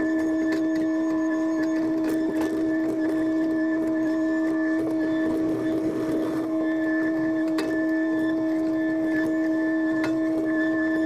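John Deere 50G compact excavator running under work, heard from inside its cab: a steady diesel and hydraulic drone with a strong whine, and a few light clicks and knocks.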